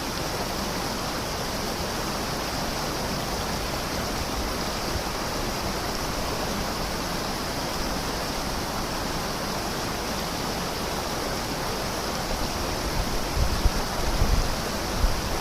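River rushing steadily after a rainstorm, an even, continuous wash of flowing water. In the last few seconds some irregular low rumbling swells come in over it.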